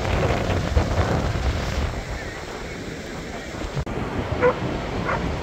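Wind buffeting the microphone over the rush of breaking surf. After a cut about four seconds in, two short calls stand out over the surf.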